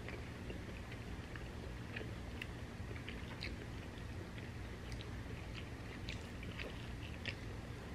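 People chewing bites of thin-crust pepperoni pizza up close: faint, scattered wet mouth clicks and smacks over a low steady hum.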